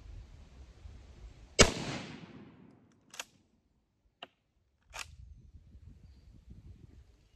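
A single loud shot from a Swiss M1911 infantry rifle (7.5×55mm Swiss) about a second and a half in, with a short echoing tail. It is followed by three sharp metallic clicks about a second apart as the straight-pull bolt is worked.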